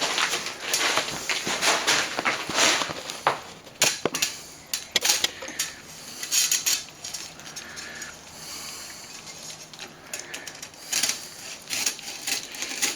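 Wire being cut and worked off the back of a plaster ventilator: irregular metallic clicks and clinks mixed with short scraping bursts.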